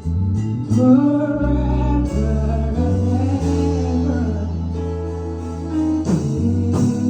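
Live gospel worship music: sustained low chords shift every second or two under a singing voice that glides over long held notes.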